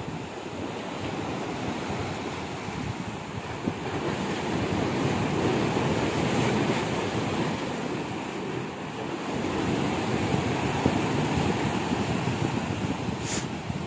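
Sea surf washing and breaking against the concrete tetrapods of a breakwater, a steady rushing that swells and eases, with wind buffeting the microphone.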